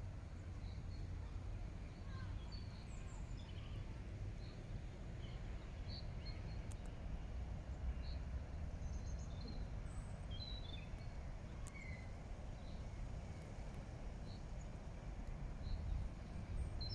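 Small birds chirping and calling here and there, short high notes scattered throughout, over a steady low rumble.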